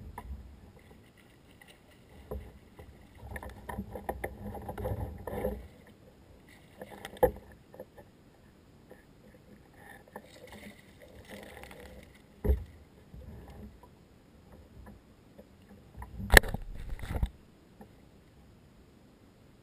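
Water splashing and sharp knocks against a plastic kayak's hull as a hooked redfish is brought alongside and scooped up in a landing net. The noise comes in irregular spells with a few single knocks, and the loudest knocks come near the end as the netted fish is lifted against the boat.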